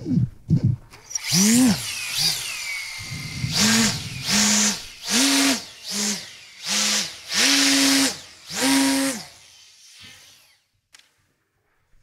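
RC electric glider (Explorer BF F5J) sweeping past close with a whoosh that falls then rises in pitch, followed by seven short buzzing bursts, each swelling and dying away, about one every 0.8 s, that fade out near the end.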